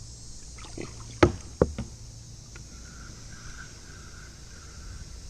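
Kayak being paddled, with the paddle knocking sharply twice against the hull a little over a second in.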